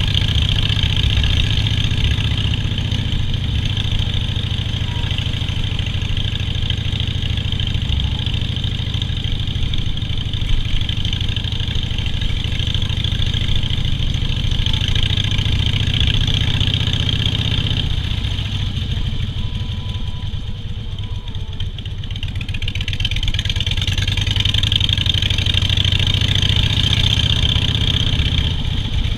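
Harley-Davidson Softail Standard's V-twin engine running steadily, with a slight drop in level about two-thirds of the way through before it picks back up.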